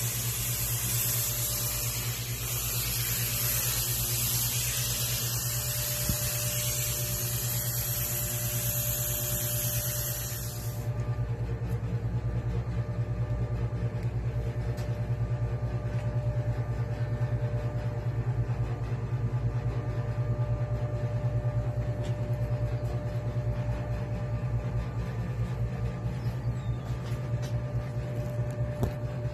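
Air spray gun hissing steadily for about the first ten seconds, then cutting off sharply, over a steady low mechanical hum that continues throughout.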